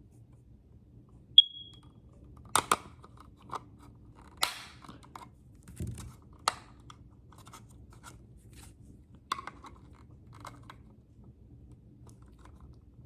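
Screwdriver prying at the plastic tabs of a smoke detector's case: scattered sharp plastic clicks and scrapes. There is one short, high-pitched chirp about a second and a half in.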